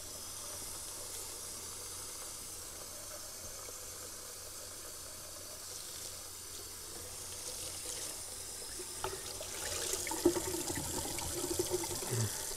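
Running water filling a plastic freezer bag of crappie fillets to the brim, to drive out the air before freezing. From about nine seconds in it grows louder and busier, with splashes and small knocks.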